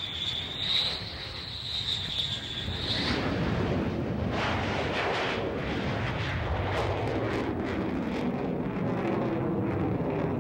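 Twin jet engines of an F-14 Tomcat at full power as it takes off and pulls into a steep climb. A high whine gives way about three seconds in to a much louder roar with crackle, and the roar drops in pitch near the end as the jet climbs away.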